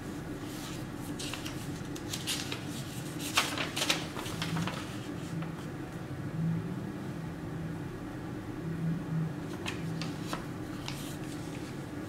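Paper handling: old letters, sheets and envelopes being picked up, shifted and laid down, giving short crisp rustles and crinkles, busiest a few seconds in and again near the end, over a steady low hum.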